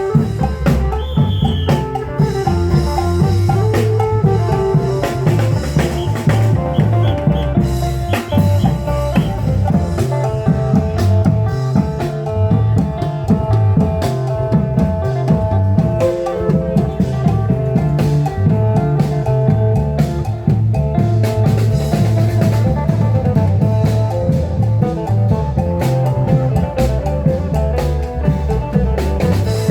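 Klong yao long-drum band playing lively Isan procession music: a steady, driving drum beat with a melody line held over it.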